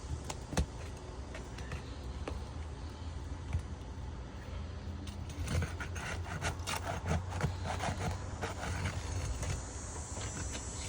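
Scattered clicks and scraping from work on roof shingles, lifting and handling them with a hand tool, with a flurry of them past the middle. A steady low hum runs underneath.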